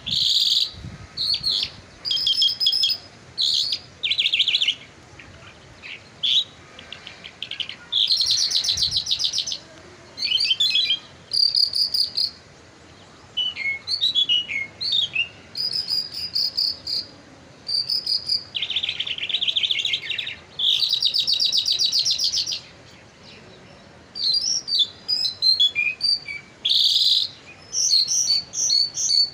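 Caged Mashadi jal, a lark kept for its song, singing: a long run of varied high phrases of rapid trills, quick repeated notes and short whistled notes, with brief pauses between phrases.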